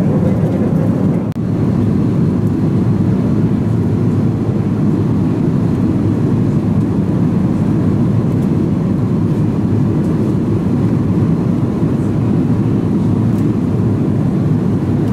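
Steady cabin drone of an Airbus A330-200 airliner in cruise, heard from inside the economy cabin: a deep, even rush of engine and airflow noise.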